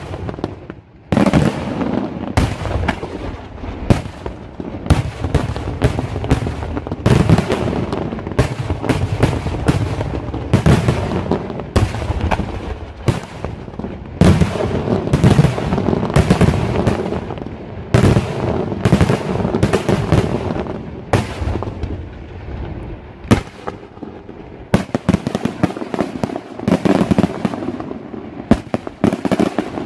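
Daytime fireworks barrage: aerial shells bursting overhead in rapid succession, several bangs a second with crackling between them. There is a brief lull about a second in, and it eases a little before building again near the end.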